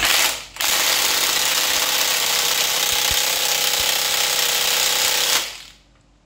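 Handheld power tool running on the engine: a short burst, then a steady run of about five seconds that cuts off near the end.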